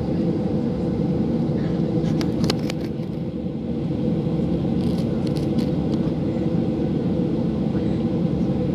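Steady low rumble of a Ryanair Boeing 737-800's jet engines at taxi power, heard inside the cabin while the airliner rolls onto the runway. A few light clicks and rattles come about two seconds in and again about five seconds in.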